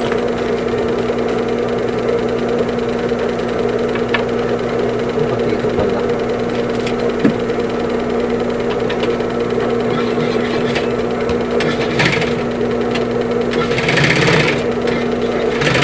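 Sewing machine running steadily with an even hum, stitching a zipper onto a bag, with brief scratchy noises about three-quarters of the way in and again near the end.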